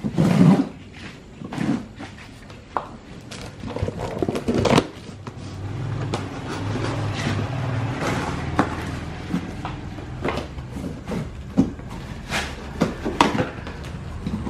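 Cardboard cartons being opened: a blade slitting packing tape, with scraping, tape and plastic crinkling, and sharp clicks and knocks of the cardboard flaps. A steady low hum comes in about six seconds in.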